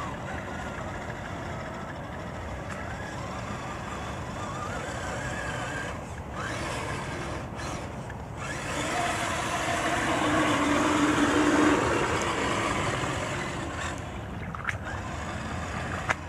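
Redcat Gen 8 RC crawler's electric motor and gears whining as it drives through shallow flood water, with the splash and wash of water around its tyres, swelling to its loudest from about nine to twelve seconds in. Two short sharp clicks near the end.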